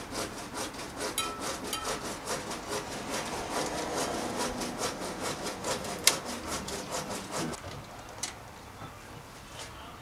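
Steel bicycle brake cable scraping as it is drawn by hand through a cantilever straddle-cable bridge: a rapid rasping run of about four to five strokes a second, with one sharp click about six seconds in. The scraping stops after about seven and a half seconds.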